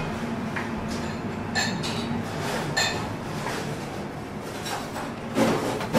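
Crockery and cutlery clinking in a restaurant kitchen: a few sharp ringing clinks of spoon and ceramic bowl, then heavier knocks of plates being handled near the end, over a steady low hum.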